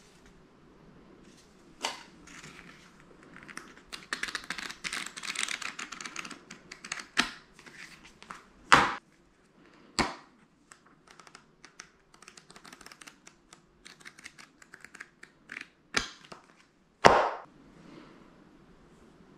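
Paper rustling and crinkling as a helmet's instruction booklet and paper inserts are handled, broken by about six sharp clicks and taps, the loudest near the end.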